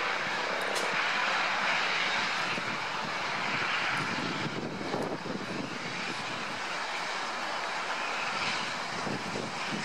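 Steam locomotive working hard as it approaches, a steady rushing roar of exhaust with fast beats underneath.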